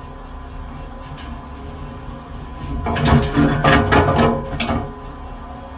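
Conveyor machine heard through a contact microphone: a steady mechanical hum with a few faint ticks. About three seconds in comes a run of loud clattering knocks lasting about two seconds, and then the hum carries on alone.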